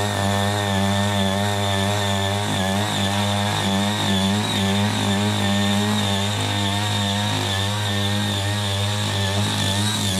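Small walk-behind tiller engine running steadily at working speed while its ridger cuts a furrow through the soil.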